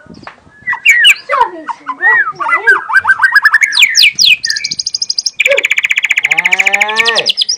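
Young wild-caught white-rumped shama singing a long, varied song: whistled notes sliding up and down, then a fast high trill about halfway and a long rapid rattling run of falling notes near the end.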